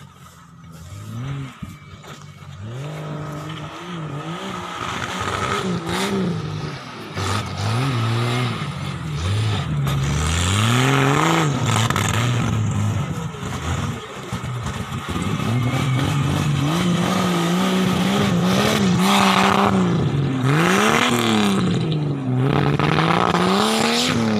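Off-road 4x4's engine revving up and falling back again and again as it drives over the dirt mounds, growing much louder as it comes close and passes by.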